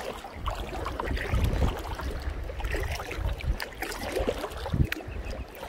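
Kayak paddling on a lake: irregular splashes of paddle strokes and water lapping at the kayak hull, over a low rumble of wind on the microphone.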